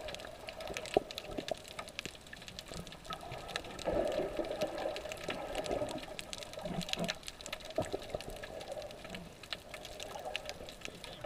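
Underwater sound picked up by a camera held below the surface: a muffled wash of moving water with many scattered sharp clicks and crackles.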